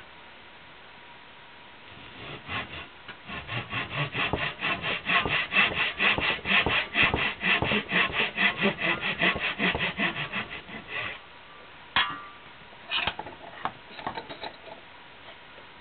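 Hand sawing in quick, even back-and-forth strokes, several a second, stopping about eleven seconds in; a sharp click and a few light knocks follow.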